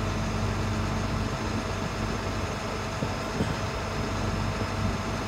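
2006 International 4300 bucket truck's diesel engine running steadily with the PTO engaged, driving the boom hydraulics while the material-handling winch lowers its hook; a low, even hum.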